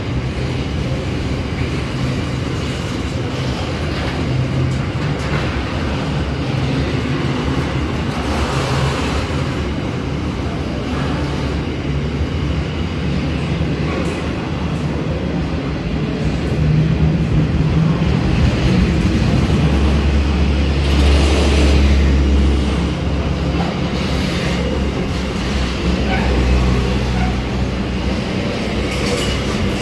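Intermodal container freight train's wagons rolling past close by: a steady rumble of steel wheels on rail, louder for several seconds past the middle.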